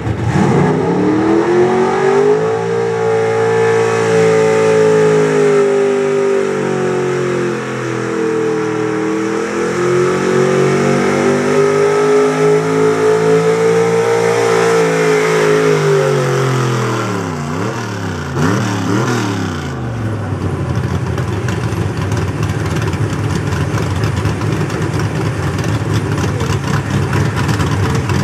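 Small-block V8 of a Chevrolet 4x4 pickup pulling a sled under full load: it climbs to high revs, holds there for about fifteen seconds with a brief dip partway, then drops off with a couple of quick throttle blips as the pull ends. It then settles to a steady idle.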